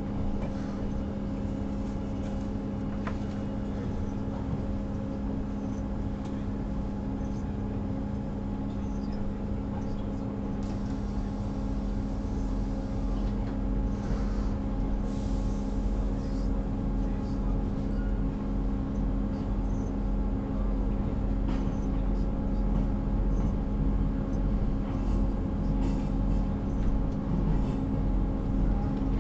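Class 158 diesel multiple unit heard from inside the carriage while under way: a steady engine drone with a hum of several steady tones over a low rumble, growing a little louder over the second half.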